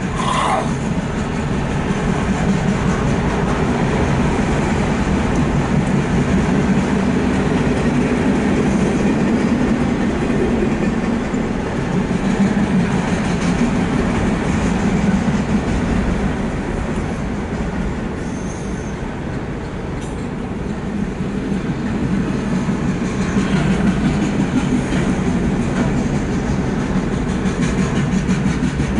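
Empty autorack freight cars rolling past: a continuous rumble of steel wheels on rail with a clickety-clack of wheels over rail joints, heard from inside a car.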